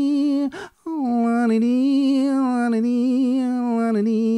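A man humming wordlessly in long held notes that waver slightly in pitch, broken by a quick breath about half a second in.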